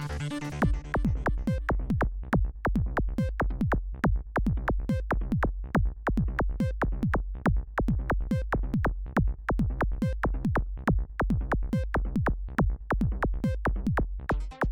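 Electronic dance music: a melodic synthesizer line gives way, about a second in, to a fast, steady kick drum of about four beats a second over deep bass.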